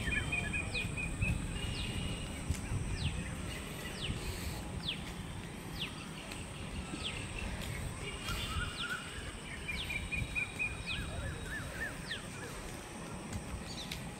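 Birds calling from roadside trees: sharp, quickly falling whistled notes repeated every second or so, with short runs of rapid chirps, over a steady high hiss and a low rumble.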